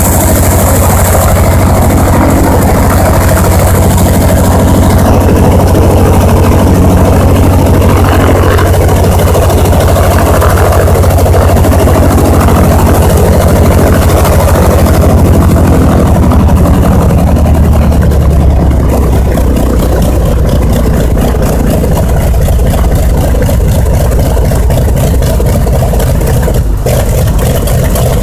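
Douglas A-1 Skyraider's Wright R-3350 18-cylinder radial engine running loud and steady at low power on the ground, turning its four-blade propeller. A bit past halfway the engine note drops lower as power comes back.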